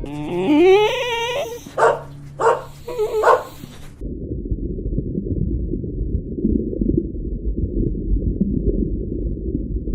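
A dog whining: one long call that rises and wavers, then three short yips. A steady low rumble of noise follows.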